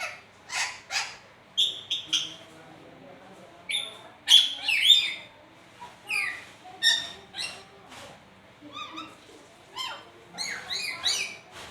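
A pet lory (nuri parrot) calling in a run of short, sharp chirps and squawks, about a dozen spaced irregularly, some in quick clusters.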